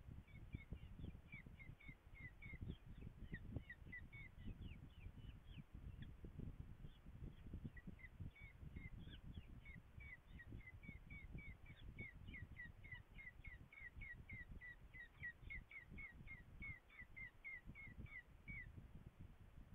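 Raptor nestlings begging while an adult feeds them at the nest: a rapid series of short, high chirps, about three a second, pausing for a few seconds and then running on until near the end. Under them is a faint, low wind rumble on the microphone.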